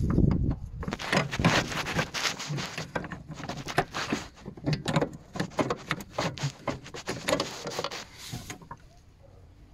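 Rapid, irregular clicks, knocks and rattles of a Vauxhall Zafira's clutch master cylinder being worked loose and pulled out from among the hoses and pipes, stopping near the end.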